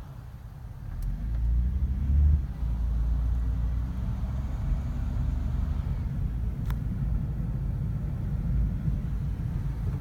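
Low rumble of a car driving, engine and road noise together, growing louder about a second in and then holding steady.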